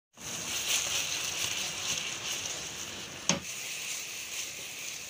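Fried chicken drumsticks sizzling in a hot ketchup and chilli sauce in a frying pan as they are stirred and tossed. There is a single sharp knock of the spatula against the pan about three seconds in.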